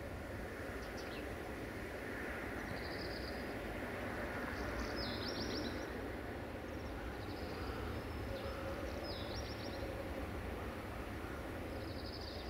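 Outdoor rural ambience: a steady low rumble with short, high chirping trills every second or two.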